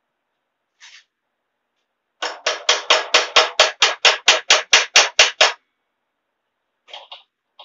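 Hammer tapping on metal: a quick, even run of about fifteen blows, four or five a second, lasting about three seconds.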